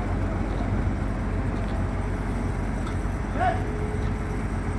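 Diesel engines of heavy mobile cranes running steadily under load during a tandem lift, a continuous low drone. A brief call cuts through about three and a half seconds in.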